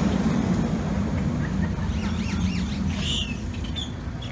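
Fire engine's diesel engine running as the truck drives past, its low drone fading as it moves off. About two seconds in comes a brief, quick up-and-down high warble, and a short high squawk follows a second later.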